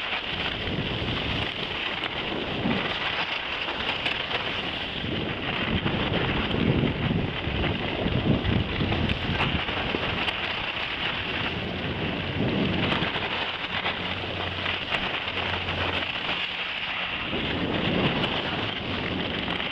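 Wind buffeting the microphone and skis hissing and scraping over packed snow during a downhill run, a steady rushing noise with gustier rumbling stretches.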